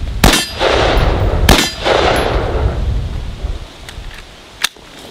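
Two gunshots about a second and a quarter apart, each followed by a ringing clang from a struck steel target. A short sharp tick comes near the end.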